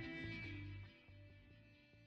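Soundtrack music fading out, with a sharp drop in level about a second in before it trails away.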